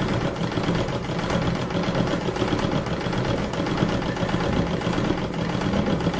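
Treadle sewing machine running steadily, its needle stitching rapidly through hooped fabric in free-motion embroidery: an even, rapid mechanical clatter.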